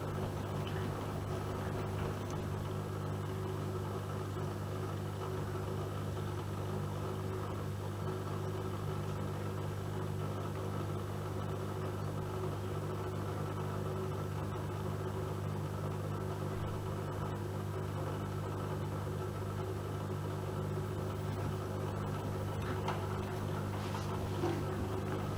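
AEG Öko-Lavamat Lavalogic 1600 washing machine running mid-cycle with a steady low hum, with a few faint clicks near the end.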